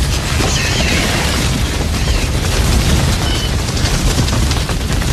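Edited Gallimimus sound effects: a loud, steady low rumble with a few faint, short high-pitched calls over it.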